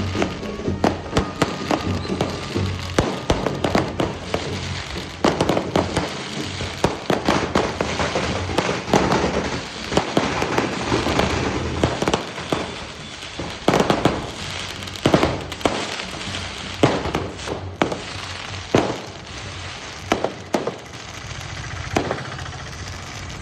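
Firecrackers going off in a long, rapid, irregular run of sharp bangs, densest in the middle and thinning to separate loud cracks towards the end.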